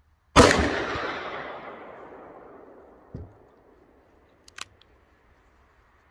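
A single shot from a scoped Ruger Super Redhawk revolver firing a 240-grain .44 Magnum round, its report echoing and dying away over about three seconds. A soft knock follows, then two sharp clicks near the end.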